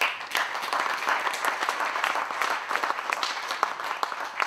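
Audience applauding: many people clapping at once, a dense patter that dies away near the end.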